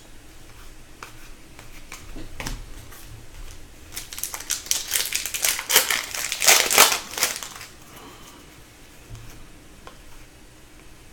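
A foil wrapper of a pack of Upper Deck hockey cards crinkling as it is torn open and handled, loudest for a few seconds in the middle, with scattered light clicks around it.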